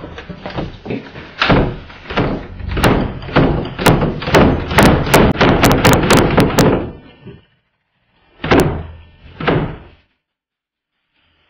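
Repeated heavy bangs and thuds against a closed interior door held shut from the inside, coming faster and louder over the first seven seconds. Two more bangs follow about a second apart.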